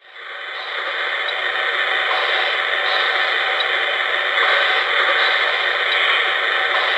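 Steady simulated steam hiss from an O-gauge model steam locomotive's electronic sound system (Lionel Railsounds), fading up from silence over the first second, with a few faint ticks.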